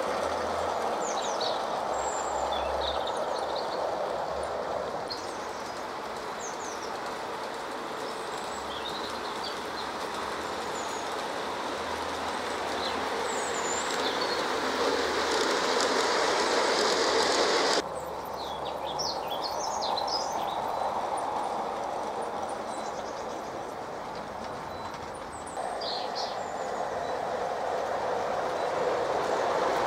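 Battery-powered LGB Corpet-Louvet garden-railway locomotives and coaches rolling over outdoor model track, a steady rolling rumble with light wheel clicking. It swells as a train nears, changes abruptly about 18 seconds in, and builds again toward the end. Birds chirp throughout.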